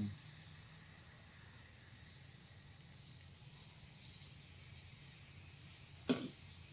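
Coca-Cola fizzing in a mug of crushed garlic, a steady faint hiss of bursting bubbles; the garlic sets the soda foaming harder. About four seconds in more Coke is poured in from a plastic bottle and the fizz grows, and a short knock sounds near the end.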